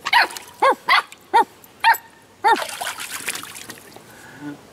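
Puppy barking, six short barks in about two and a half seconds, followed by splashing of shallow water in a plastic kiddie pool as she moves about.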